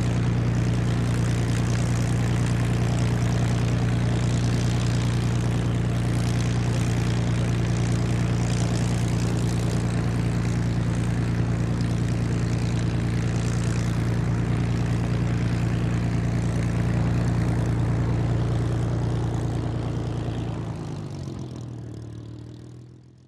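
Propeller aircraft's piston engine running steadily at low speed, then dying away over the last few seconds.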